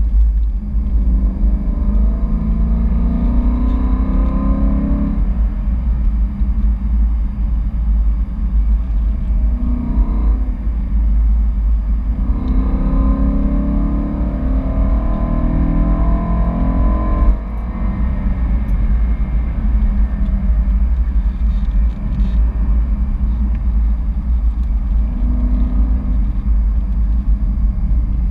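BMW E92 M3's 4.0-litre V8 heard from inside the cabin over a heavy, steady road rumble. Its pitch climbs as the car accelerates, about two seconds in and again around twelve seconds in, and it drops back between.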